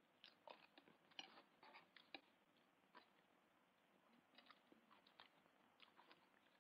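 Faint eating sounds: a spoon clicking and scraping on a plate, irregularly several times a second, with chewing as beans are wolfed down.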